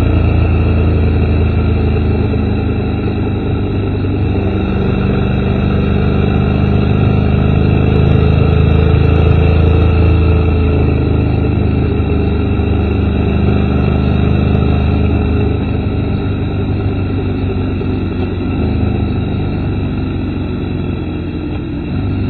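Honda motorcycle engine running at a steady cruise, a continuous drone that swells slightly a few seconds in and eases off toward the end, picked up by a front-mounted camera's microphone.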